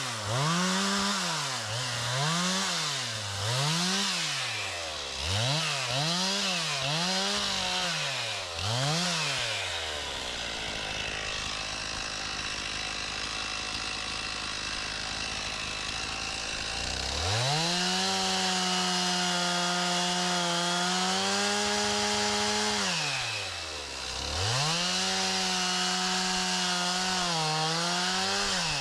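Stihl MS 391 two-stroke chainsaw being revved in quick throttle blips about once a second, then idling for several seconds. It is then held at full throttle twice for several seconds each, the pitch sagging slightly as it cuts through wood.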